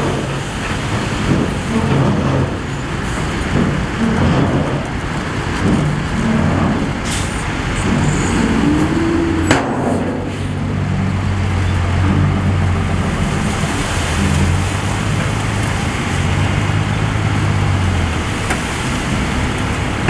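Heavy construction machine's diesel engine running, its pitch rising and falling with the throttle, with a sharp metallic clank about nine and a half seconds in.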